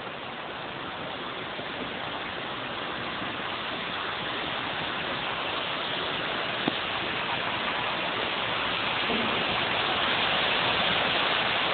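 Steady hiss of city traffic on a wet, snow-covered street below, growing slowly louder, with a single sharp click about seven seconds in.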